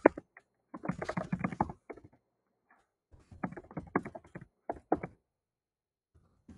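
Typing on a computer keyboard in two quick bursts of key clicks, the first about a second in and the second from about three to five seconds in, with pauses between.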